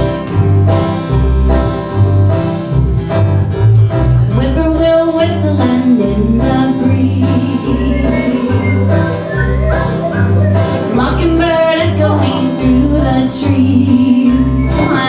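Live acoustic bluegrass-style music: banjo and guitar picking over a steady pulsing bass beat, with a voice singing or humming along.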